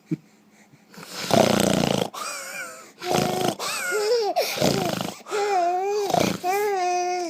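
A man making loud, drawn-out snoring sounds several times, each answered by a baby's high-pitched squealing vocal sounds, some gliding and some held.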